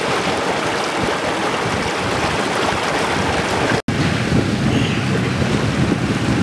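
Water rushing and splashing along the hull of a yacht moving under way through calm sea, with wind on the microphone. The sound drops out for an instant just under four seconds in.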